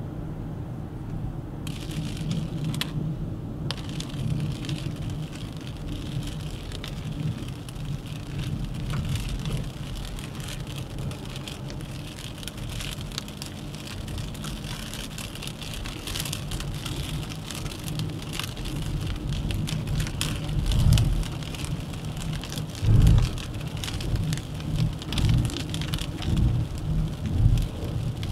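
Rain pattering on the car, a hiss of many fine drop ticks starting about two seconds in, over the steady low rumble of the 1.3 TCe Duster's engine and tyres. In the last third several heavy low thumps break through.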